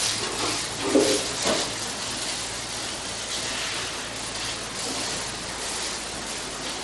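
Milking parlour machinery running: a steady hum with an even hiss over it, broken by a couple of short clatters about a second in.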